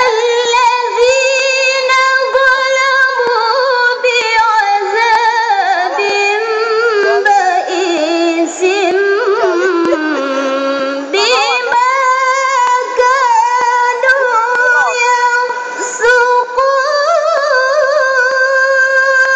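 A woman reciting the Quran in the melodic tilawah style, in a high voice, heard over loudspeakers. She starts abruptly at full voice and sustains long notes with rapid ornaments. About ten seconds in her pitch drops low, then climbs back up.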